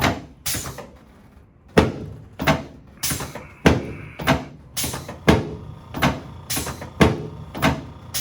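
Chiropractic adjustment thrusts on a treatment table: a run of about a dozen sharp knocks, roughly one every half second to second.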